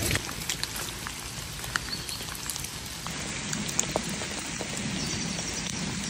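Steady rain falling, with individual drops ticking close by at irregular moments.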